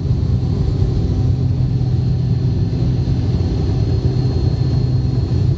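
Steady low rumble inside the cabin of an Avro RJ85 airliner, its four LF507 turbofan engines and the airflow heard from a seat over the wing, with a faint steady high whine above it.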